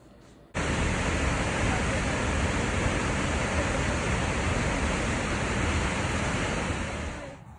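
Steady rush of a tall waterfall pouring into its plunge pool, cutting in suddenly about half a second in and fading away near the end.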